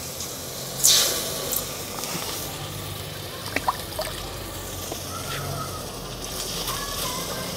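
Water poured from a plastic mug into a hot steel pot of soap bars, splashing and trickling, with a burst of hissing splash about a second in, then softer trickling and drips.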